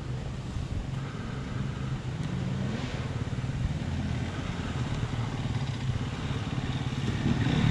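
Husqvarna enduro dirt bike idling steadily while stopped, with a couple of small blips of the throttle. Near the end another dirt bike comes closer and gets louder.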